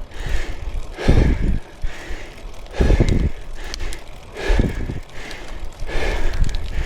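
A cyclist breathing heavily under effort on a climb, close to the microphone: four loud, deep breaths, one about every second and a half to two seconds.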